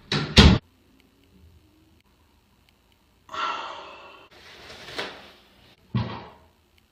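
A bathroom door shuts with a bang right at the start, then softer rustling, and a sharp knock about six seconds in as a person sits down on the toilet seat.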